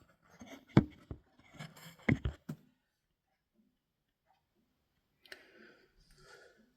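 Clicks and knocks of a small plastic radio being handled, a sharp one about a second in and a quick cluster around two seconds, then faint rustling near the end.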